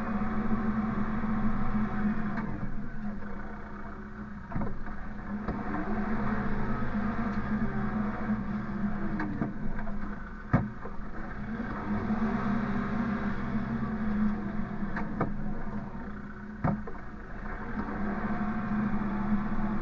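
An engine running steadily, swelling and easing off in a cycle of about six seconds, with a sharp knock about every six seconds; the loudest knock comes a little past halfway.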